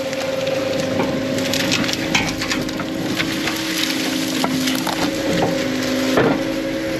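Brush and branches cracking and splintering under heavy equipment being worked through them, over the machine's steady engine and hydraulic whine. One louder snap about six seconds in.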